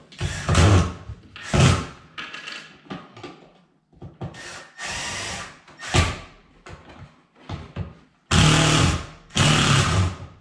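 Cordless drill-driver running in several short bursts, driving the mounting screws of a power outlet receptacle into its wall box; the two longest bursts come near the end.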